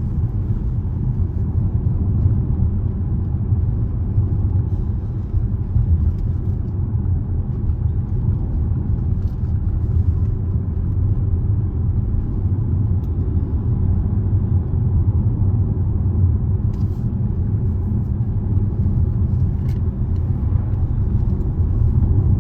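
Steady low rumble of road and engine noise heard inside a Range Rover's cabin while it drives along.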